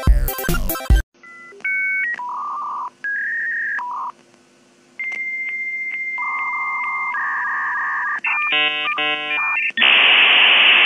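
Dial-up modem connecting: a dial tone, touch-tone dialling, a long high answer tone, then a run of warbling handshake tones, ending in a loud steady hiss of static near the end.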